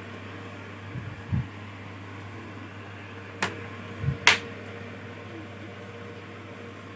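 Plastic bottom cover of a Lenovo IdeaPad 320 laptop being pressed shut. There are a few soft knocks and two sharp clicks as its clips snap into place.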